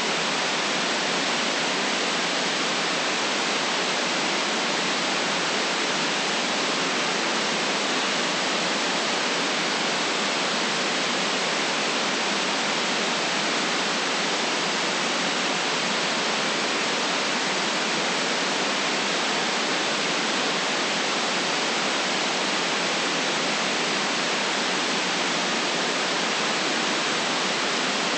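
Electronic white noise: a steady, even hiss that never changes, with no deep rumble beneath it and a sharp top cut-off.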